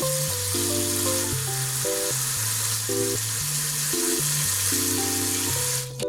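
Steady hiss of tap water running while aged chonggak kimchi is rinsed in the sink. It cuts off abruptly near the end, under light background music.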